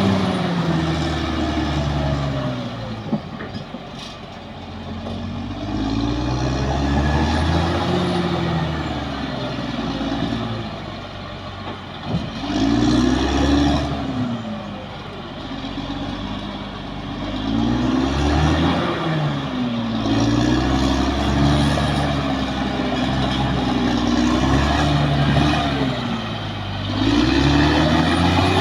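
Caterpillar D6R XL bulldozer's diesel engine working hard, its note rising and falling over and over every few seconds as the load changes.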